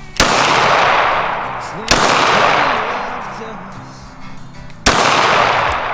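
Pistol shots, three in about five seconds, each sharp crack trailing off in a long fading echo, over background music.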